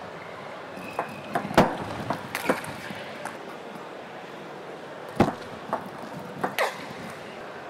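Table tennis rally: the celluloid ball's sharp clicks off rubber-faced rackets and the table at an irregular pace, over steady arena background noise. Two much louder knocks come about a second and a half and five seconds in.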